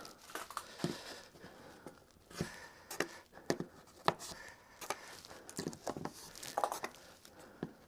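Irregular small sharp clicks and ticks, about a dozen, from metal T-pins being pulled out of a foam and cork roadbed and handled.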